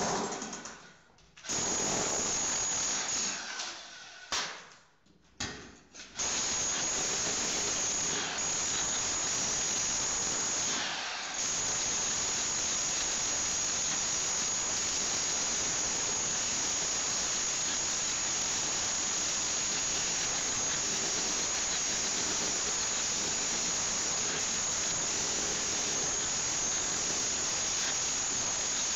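Electric chipping hammer with a chisel bit chipping glued-down wood flooring off the concrete subfloor: a harsh, steady hammering noise with a high whine. It starts and stops a few times in the first six seconds, then runs without a break.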